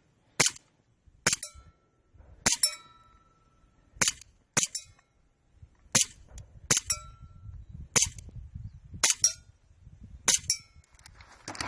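Airsoft gun firing about a dozen single shots, roughly one a second, as the shooter works through a stage of targets; several shots are followed by a brief metallic ring from a hit steel target.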